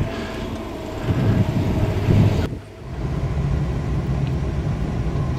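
Car engine and road noise, broken by a sudden short dip about halfway through; after it, the steady low rumble of a Peugeot 301 heard from inside its cabin.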